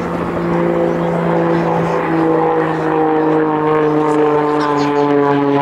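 Pitts Special aerobatic biplane in flight: its piston engine and propeller drone, the pitch sinking slowly and then dropping a little further near the end.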